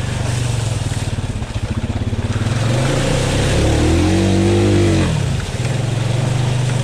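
Honda Rubicon ATV engine running, then revved hard through a flooded mud hole: about three seconds in its pitch climbs, holds briefly and drops back, and the engine settles to a steady run again.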